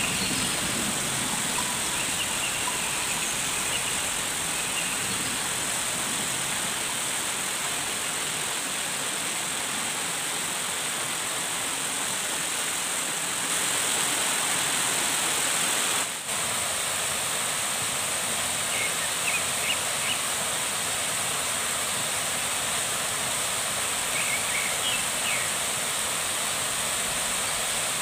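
Steady rush of flowing water from a forest stream or small waterfall, with a few faint high chirps over it.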